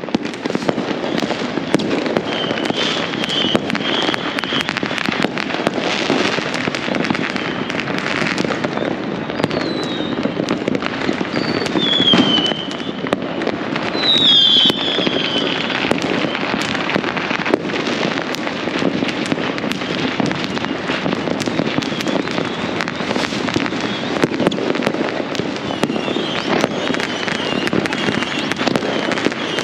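Many fireworks and firecrackers going off at once from all around, a continuous dense crackle of bangs with no let-up. A few short whistles falling in pitch cut through around the middle.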